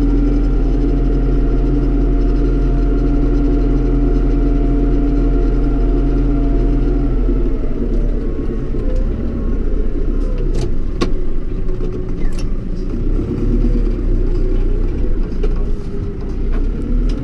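Tractor engine running under way, heard from inside the cab: a steady drone that turns rougher and uneven about seven seconds in, with a few sharp knocks in the middle.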